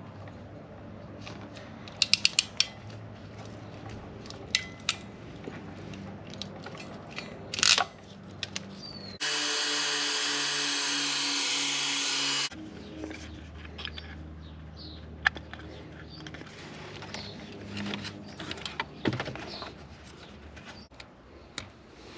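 A quick run of sharp clicks from a hand crimping tool working on a wire terminal, then a heat gun blowing steadily for about three seconds on the sensor's wire connection before it is switched off abruptly.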